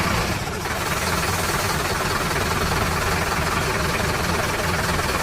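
Engine idling steadily with a rapid low knocking rumble.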